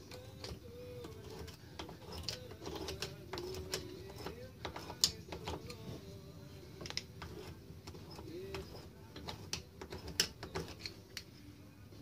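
Irregular light metallic clicks and taps from a screwdriver working the adjuster through the access hole of a Honda ATV front drum brake, with a few sharper knocks and a faint wavering tone underneath.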